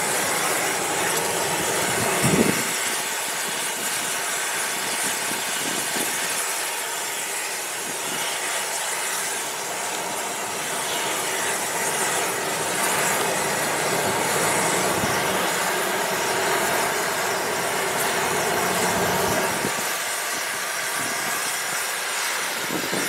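Oxygen-propane preheating torch burning steadily into a thermite-weld mould on a railroad rail, a constant rushing hiss of the flame. It is the preheat stage that brings the rail ends up to heat before the thermite pour. A brief low thump comes about two seconds in.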